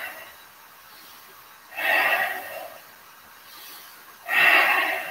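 A man's heavy breaths, three of them about two and a half seconds apart, each lasting about a second: deep breathing under exertion while holding a balance pose.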